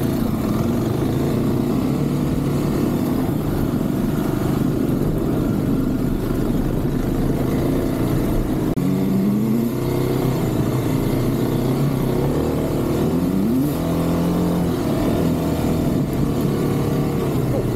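Kawasaki KLX 300 dirt bike's single-cylinder four-stroke engine running under way on a gravel trail. It revs up, with the pitch climbing about halfway through and again a few seconds later, over a steady rush of wind and tyre noise.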